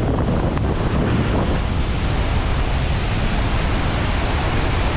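Steady roar of the Devil's Throat at Iguazu Falls, heavy falling water heard up close, with wind buffeting the microphone.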